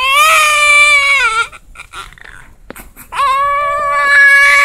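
Newborn baby crying loudly in two long, steady-pitched cries with a short pause between them.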